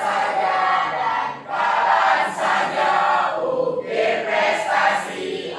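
A class of students singing together in unison, in phrases of about a second.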